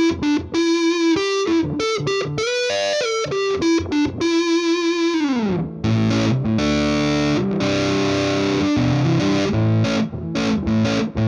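Distorted electric guitar, a Telecaster on its neck pickup in the dark-circuit setting with high gain. It plays a single-note lead line with bends and vibrato that ends in a downward slide about five seconds in, then sustained distorted chords.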